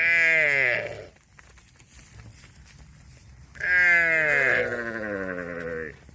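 A calf mooing twice: a short call of about a second, then a longer one of about two seconds, each starting high and falling in pitch.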